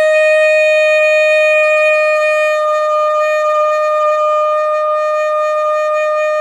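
Saxophone holding one long, steady note, played with the jaw dropped well open to loosen the embouchure and let the reed vibrate freely for a bigger, more open tone.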